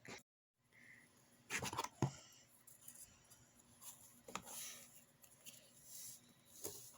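Quiet handling of kinetic sand and plastic sand-play molds: soft scraping and rustling with a few light clicks and taps, the loudest a short cluster about a second and a half in.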